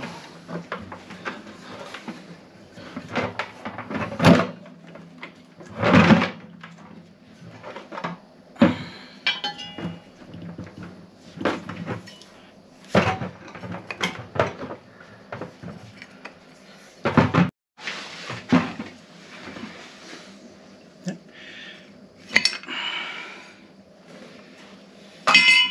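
Irregular metallic clanks, knocks and scrapes as cast-iron pump motor parts and a bracket are handled, turned and set down.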